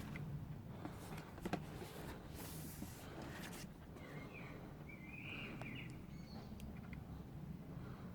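Faint background with a few light clicks and a rustle in the first few seconds, then a short bird chirp about four to five seconds in.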